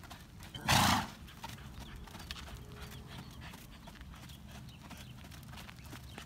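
Thoroughbred gelding trotting on sand with soft hoofbeats, and one loud, short snort about a second in. The snort is one of the nose-clearing snorts of his head-shaking syndrome.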